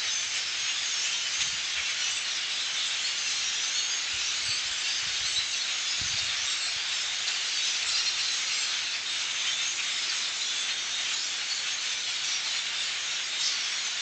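A large flock of migrating birds calling all at once: a dense, unbroken chatter of countless high voices that blends into a steady hiss-like wash.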